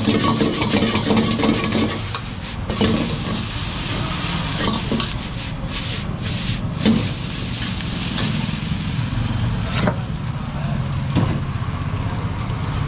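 Noodles sizzling as they are stir-fried in a wok, with a long-handled steel ladle stirring and tossing them and scraping and knocking against the wok every couple of seconds.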